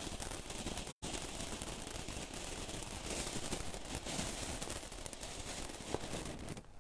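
Ground fountain firework spraying sparks: a steady crackling hiss. It cuts out for a moment about a second in and dies away just at the end.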